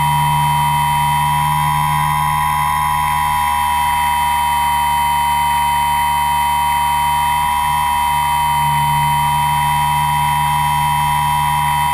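Motor and propeller of the Ugly Eye RC aircraft, recorded by its onboard GoPro, running at steady cruise throttle: a steady high whine whose pitch barely changes.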